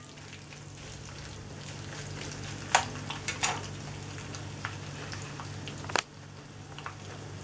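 Urad dal, dry red chilies and ginger sizzling gently in a little oil in a kadhai on a low flame. A steel spoon stirs them and clinks against the pan a few times, about three seconds in and again near six seconds.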